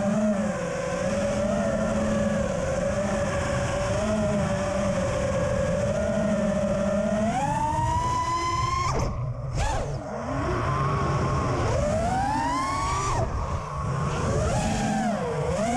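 FPV quadcopter's brushless motors spinning 5040 props, a steady whine while cruising that rises sharply in pitch as throttle is punched about halfway through, cuts off suddenly, then climbs and drops twice more with the throttle.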